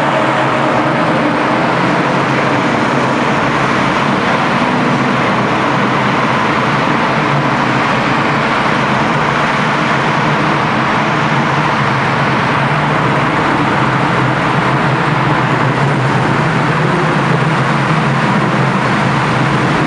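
Cars' engines and exhausts droning steadily at an even cruising speed inside a road tunnel, together with tyre and road noise; no revving or gear changes.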